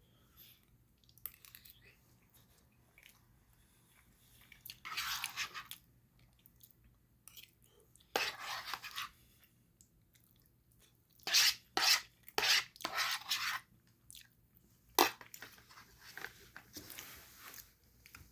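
A person eating noodles close to the microphone: chewing and mouth noises in separate bursts, with a run of louder ones past the middle.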